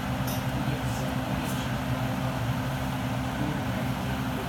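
A steady droning hum with an even hiss over it, and a few faint ticks in the first second and a half.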